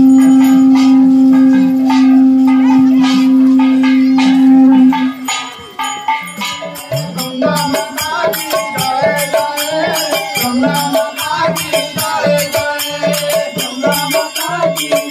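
A long, steady held note for about the first five seconds. Then kirtan music takes over: men singing into microphones over a steady barrel-drum beat and jingling hand percussion.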